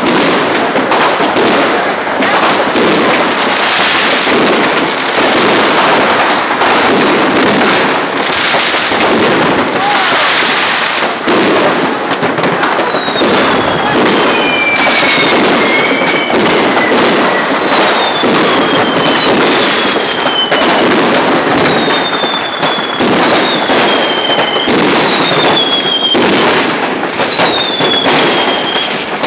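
A fireworks barrage across a city, with overlapping bangs and crackling that never let up. From about halfway on, a string of whistling fireworks joins in, each whistle falling in pitch.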